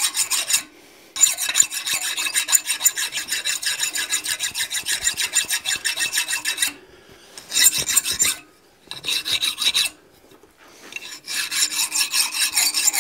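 A worn half-round file rasping quickly back and forth across a hot steel rod clamped in a vise, cutting on both the push and the pull, broken by a few brief pauses. The metal is being smoothed while still hot, when it files more easily than cold.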